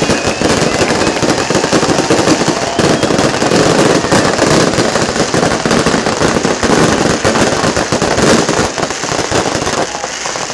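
Fireworks crackling and banging in a dense, rapid-fire run, easing off near the end.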